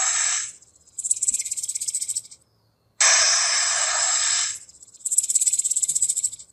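Recorded snake hissing twice. Each long, even hiss is followed by a fast, rattling buzz.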